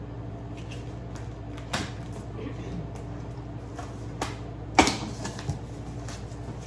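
Cardboard box and packaging being handled: scattered knocks and rustles, the loudest a sharp knock near the end, over a steady low hum.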